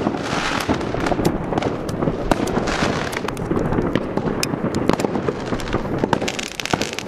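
ChinaRed Bulldozer 116-shot compound firework cake firing from its 25 mm tubes: a dense, rapid, unbroken run of launch thumps and sharp bangs.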